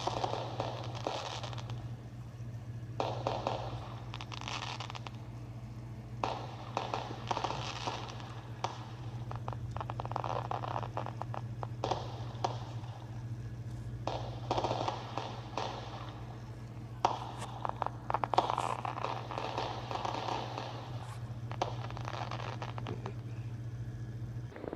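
Fireworks crackling in repeated bursts of a second or two, with short gaps between them, over a steady low hum.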